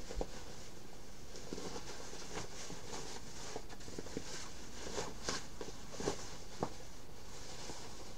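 Cotton fabric rustling and crumpling as a fabric basket is handled and turned the other way out, its corners pushed through, with a few soft knocks, the clearest about two thirds of the way through.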